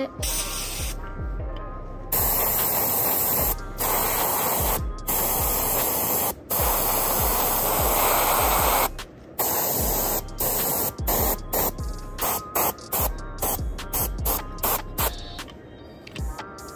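Airbrush spraying paint in a series of hissing bursts. There are several long sprays of one to two seconds, then many short, quick taps in the last few seconds, as the paint is splotched onto the lure.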